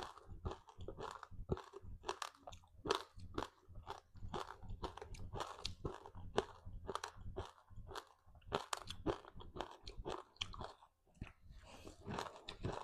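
Close-miked crunching and chewing of a crispy seaweed-wrapped rice snack: sharp crackly crunches come several times a second in an irregular run, easing briefly near the end.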